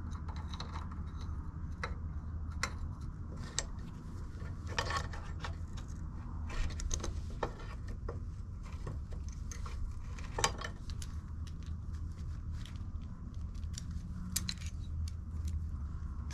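Irregular metallic clicks and clinks of an adjustable wrench working an AN6 hose fitting clamped in a bench vise, a few sharper knocks among them, over a steady low hum.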